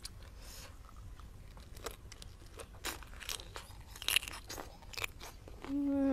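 A person biting into and chewing a crisp lettuce wrap of raw shrimp: a string of sharp, crisp crunches through the middle. Near the end comes a short voiced sound falling in pitch.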